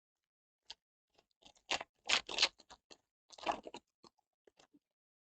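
Trading card pack wrapper being torn open and crinkled by hand, in irregular crackling bursts with a few small clicks between.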